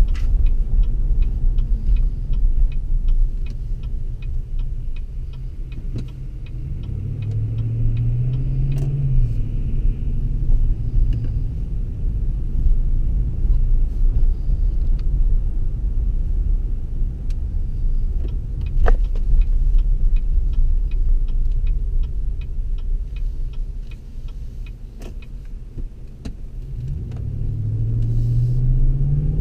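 Engine and road noise inside a pickup truck's cab while driving. The engine rises in pitch as it accelerates about seven seconds in and again near the end, and a turn signal ticks steadily through the first ten seconds or so.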